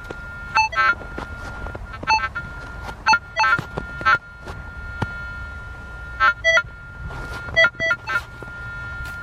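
Metal detector beeping as it is swept over a target it has lost track of in the dug spot: a steady high tone runs under clusters of short beeps that change pitch, about a dozen in all, with a gap in the middle.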